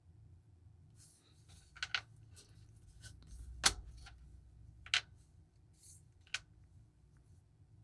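Small metal watch end links being handled and set down on a wooden tabletop: about five light, sharp taps and clicks, the loudest a little under four seconds in, between soft handling rustles.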